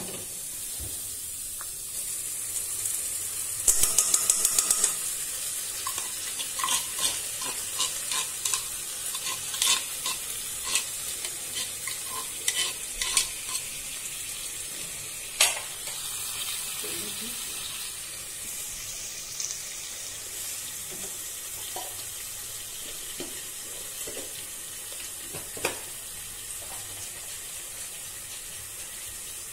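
Chopped tomatoes sizzling in hot oil in a kadai, with a metal spoon stirring and knocking against the pan. A quick clatter comes about four seconds in, then a run of short spoon knocks over the next several seconds and one sharp knock midway.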